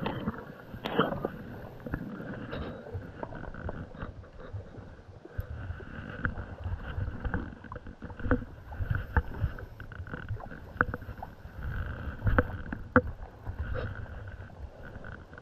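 Water sloshing and splashing with scattered knocks and taps, over a low rumble.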